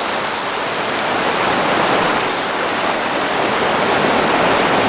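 Steady rush of a fast-flowing river below a weir, an even noise with no breaks.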